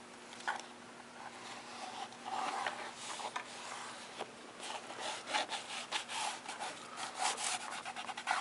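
Quick, repeated rubbing strokes on paper as glued paper is pressed and smoothed down along the inside of a book's spine. The strokes start about two seconds in and grow denser toward the end.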